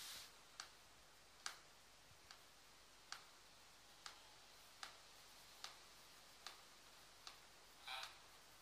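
Near silence with faint, regular ticks about every 0.8 seconds, and a short soft rush of noise near the end.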